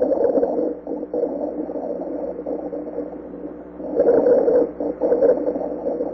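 Chest auscultation recording of breathing with continuous musical, whistle-like tones running through it, the kind of adventitious lung sound heard in narrowed airways. It swells in the first second and again about four seconds in, two breaths.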